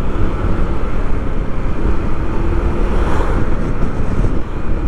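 Wind buffeting the microphone over the running noise of a moving vehicle, a dense low rumble, with a faint steady hum rising out of it for a second or so in the middle.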